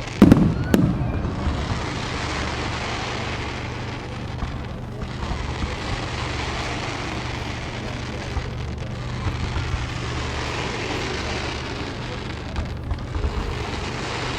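Fireworks display: two loud bangs in quick succession right at the start, rumbling away over about a second. Steady background noise follows, with scattered smaller pops later on.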